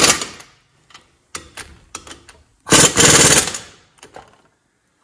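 Air impact wrench hammering bolts down on a front brake assembly. One burst ends just as the sound begins, and a second burst of under a second comes almost three seconds in. Light metallic clicks of tool and parts come between the bursts.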